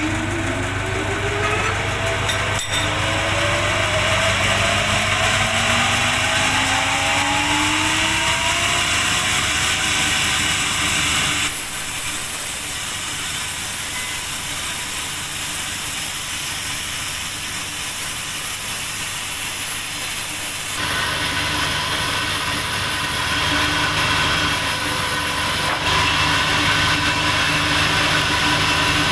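Large log sawmill machinery running: a motor whine climbs steadily in pitch over the first several seconds, then a loud steady hiss of the saw cutting through timber takes over. The sound changes abruptly twice more later on.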